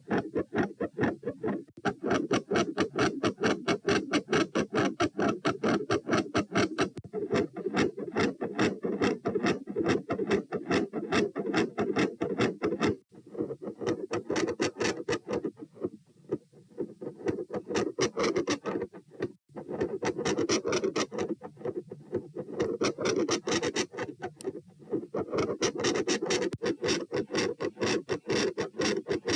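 Human heart sounds recorded on the chest: a fast, even run of heartbeats. The beats weaken and become patchy from about 13 to 19 seconds in, then come back strong.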